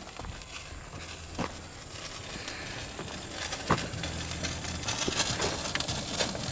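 Open flames burning on top of a car engine, crackling with scattered sharp pops. The crackling grows busier and a little louder toward the end. A faint low hum comes and goes underneath.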